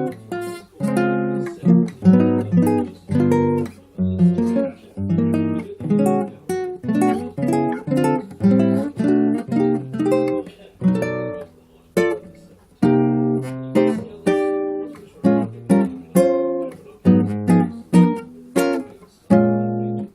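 Acoustic guitar played alone: chords strummed one after another, about one or two a second, each left to ring and fade before the next, with a few short pauses.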